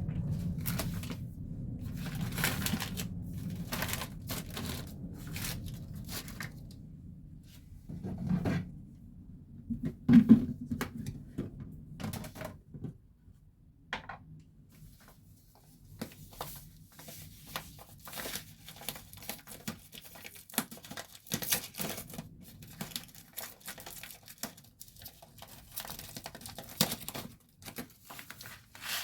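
Household handling noises: plastic packaging crinkling and tearing, with scattered clicks and knocks as items are handled, and one sharp knock about ten seconds in. A low rumble runs under the first eight seconds and stops.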